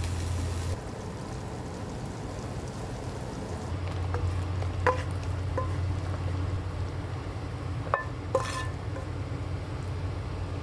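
Kitchen sounds: a steady low hum with a few light clinks of kitchenware, which come around the middle and again near the end, each ringing briefly.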